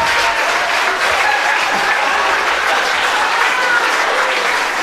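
Live audience applauding steadily after a comedian's punchline.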